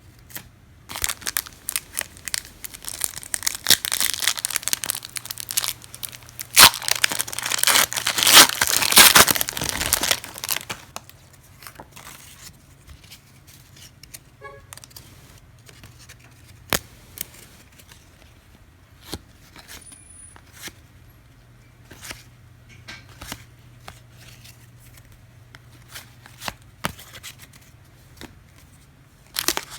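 A trading-card pack wrapper being torn open and crinkled for the first ten seconds or so, followed by sparse light clicks and taps as the cards are handled, with another burst of wrapper tearing at the very end.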